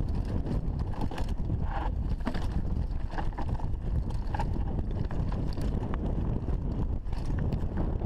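Wind rumbling on the microphone of a mountain bike running down a rocky trail, with the tyres crunching over loose stones and the bike rattling and clicking over the bumps.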